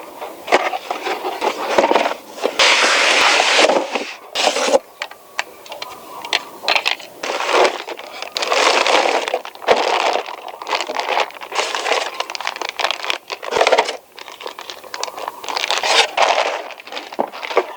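Packaging being handled during an unboxing: irregular bursts of rustling and crinkling, with scattered small clicks and knocks.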